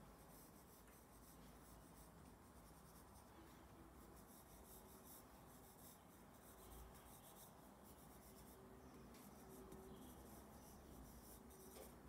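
Faint scratching of a graphite pencil on paper, a run of short, irregular sketching strokes.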